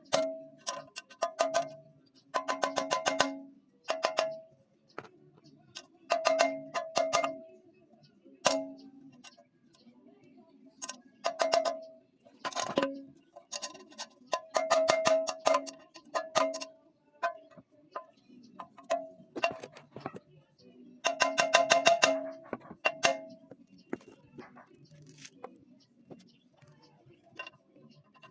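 Hammer blows on metal in quick bursts of several strikes, with pauses between, each blow ringing with a bell-like tone. It is the wet-paper method of removing a Yamaha Mio Gear crankcase bearing: wet paper is hammered into the bore so that it pushes the bearing out.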